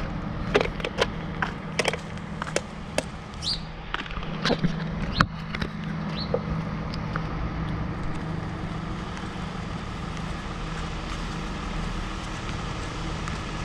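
Tow truck's engine running steadily, with a series of sharp metallic clicks and knocks over the first six seconds, then only the steady engine.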